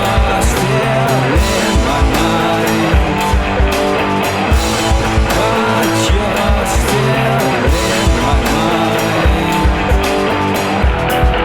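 Rock music: electric guitar over a drum kit keeping a steady beat.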